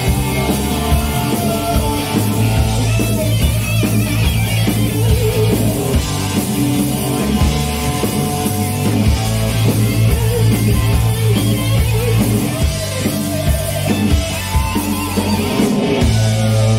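Live hard-rock band playing loudly: distorted electric guitars, bass guitar and a drum kit through stage amplification, heard from the audience.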